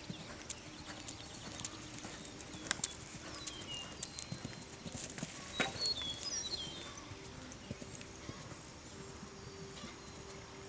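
Hoofbeats of a Westphalian/Thoroughbred gelding cantering on a sand arena, a run of dull irregular thuds, with one sharper knock just past the middle around the jump.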